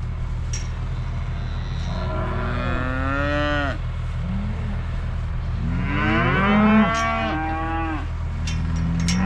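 Cattle bawling: two long, drawn-out moos, the first about two seconds in and the second in the second half, over a steady low hum.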